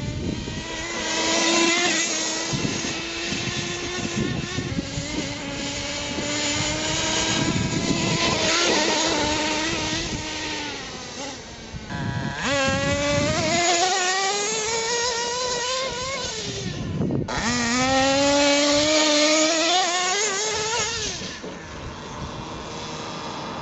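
Radio-controlled monster truck's motor running hard as it drives, its pitch rising and falling with the throttle. In the second half it winds up twice in long rising whines, each after a brief drop.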